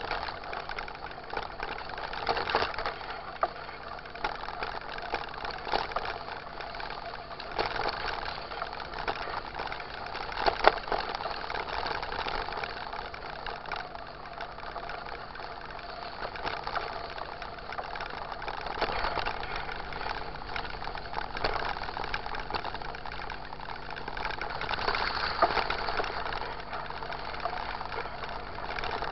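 Mountain bike rolling along a wet, potholed dirt road: steady tyre and wind noise with the bike rattling and knocking over bumps, one sharper knock about ten seconds in.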